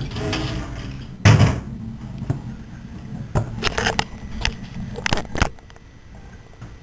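Kitchen clatter: a brief running hiss, then a loud scrape about a second in, followed by a scatter of light knocks and clicks of things being handled and set down.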